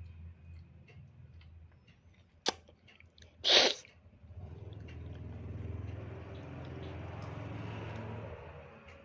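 A sharp click, then a small child sneezing once, short and loud, about three and a half seconds in. A steady low hum swells and fades through the second half.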